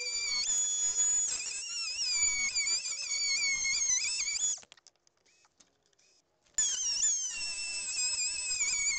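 Einhell power tool cutting into wood with a high whine that wavers in pitch as it works. It stops about four and a half seconds in, then starts again about two seconds later.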